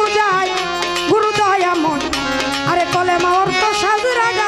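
A woman singing a Bengali baul folk song, her voice sliding between held notes, over tabla strokes and instrumental accompaniment.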